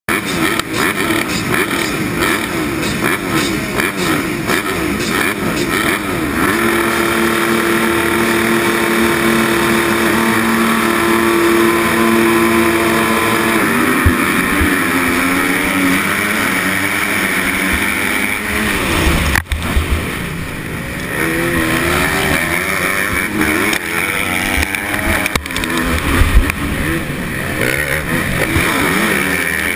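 Motocross bike engines revving in a pack, then held at steady high revs for several seconds; about fourteen seconds in they launch off the start, and the rider's own bike, close to the helmet camera, revs up and down as it races on.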